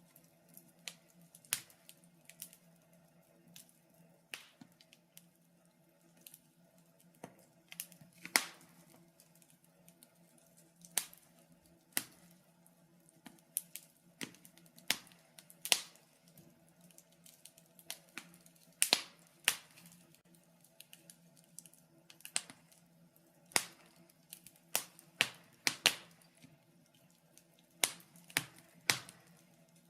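Wood fire crackling in a fireplace: sharp, irregular pops and snaps, roughly one or two a second, over a faint steady low hum.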